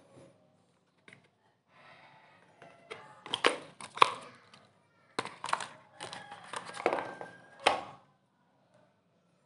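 A cardboard smartphone box and its packaging being handled: rustling and crinkling with sharp clicks and taps as the box and inner tray are pulled apart and the phone lifted out, loudest about four seconds in and stopping near the end.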